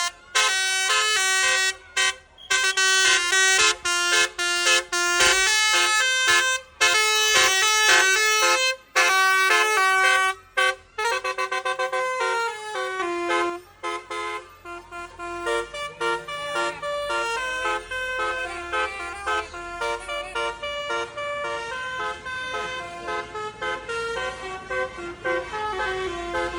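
A bus's Basuri 'telolet' musical horn playing a quick tune of stepped notes. For roughly the first ten seconds it sounds in loud blasts with short breaks, then runs on as a quieter, unbroken string of notes.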